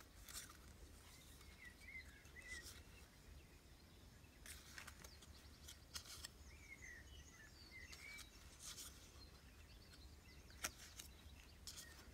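Faint, brief rustles of paper die cuts and labels being handled and shifted by hand, about half a dozen times, over near silence with a low hum.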